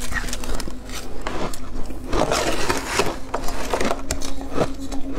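Shaved ice crunched and chewed in the mouth, with many sharp crackly clicks, and a metal spoon scraping through shaved ice in a plastic tub for about a second midway.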